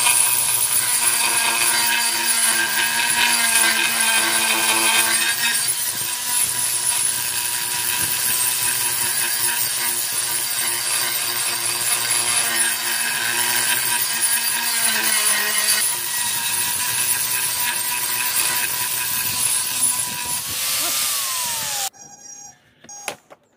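Angle grinder with an abrasive disc grinding a granite countertop edge to a rounded shape: a steady motor whine over grinding noise, its pitch shifting a little as it bears on the stone. Near the end it is switched off and winds down, falling in pitch.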